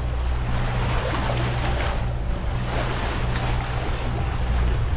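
Wind on the microphone and water rushing along the hulls of a sailing catamaran under way, over a steady low rumble.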